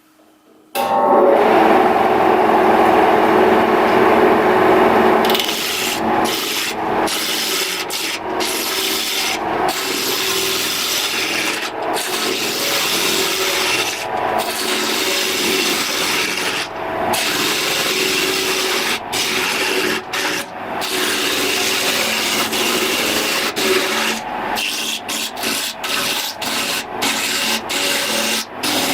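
A power tool working wood. For the first few seconds a motor whine runs under the cutting, then rough cutting noise continues, broken by many brief drop-outs.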